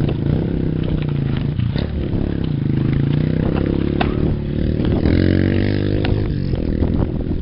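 Off-road motorcycle engine running close by, its pitch falling and rising with the throttle and climbing in a rev about five seconds in, over the clicks and rattle of a mountain bike on a rough dirt trail.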